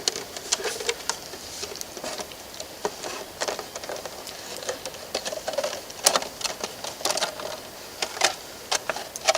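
Plastic bottle being cut and bent into a makeshift plate, giving irregular crackles and sharp clicks of the plastic.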